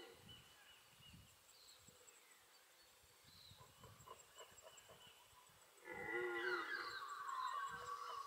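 Red deer stag roaring in the rut: after a few quiet seconds, a drawn-out call begins about six seconds in, its pitch falling.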